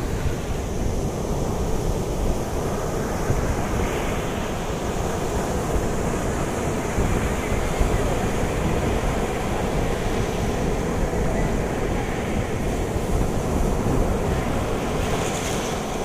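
Ocean surf washing onto a sandy beach, with wind buffeting the microphone as a steady low rumble.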